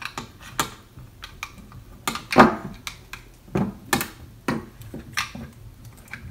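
Irregular clicks and taps of hard plastic parts being handled as a replacement battery pack is fitted into a Makita cordless drill's housing, with a louder knock about two and a half seconds in.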